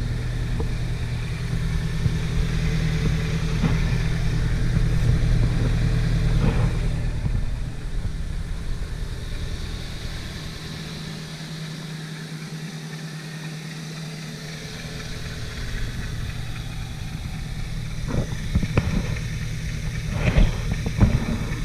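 2004 Ford Focus SVT's four-cylinder engine idling steadily after a cold start, carrying an engine-bay noise that the owner suspects is a bad rod bearing, or perhaps a failing accessory pulley bearing. A few sharp knocks come in near the end.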